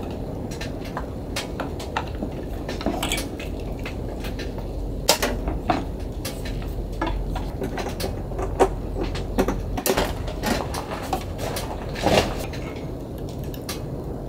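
Scattered light clicks, taps and knocks of gear being handled on a wooden camp table: a small electric hot plate set down and its power cord plugged into a portable power station. A steady low rumble runs underneath.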